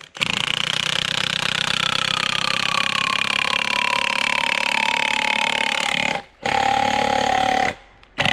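Chainsaw running at high revs while cutting into a spruce trunk, its pitch sinking slowly. It drops out briefly about six seconds in and again near the end.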